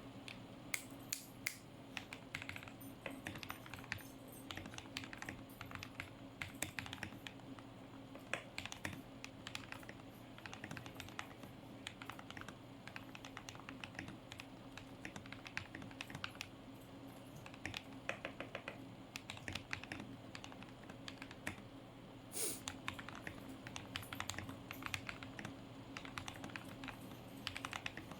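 Typing on a modded Tecware Phantom mechanical keyboard with lubed Akko CS Matcha Green switches and doubleshot PBT keycaps, its PCB, plate and case foam-, tape- and PE-modded: a fast, uneven run of muted key clacks.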